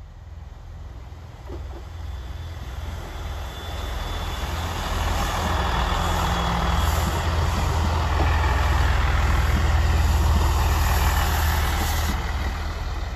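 Class 166 Turbo diesel multiple unit passing close by, its diesel engines rumbling and its wheels running on the rails. The sound builds as the train approaches and is loudest as the carriages go past, about two-thirds of the way through.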